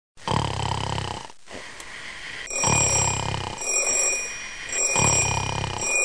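A person snoring: three long, rasping snores a couple of seconds apart. About two and a half seconds in, a digital alarm clock starts beeping, its high electronic tone pulsing on and off roughly once a second.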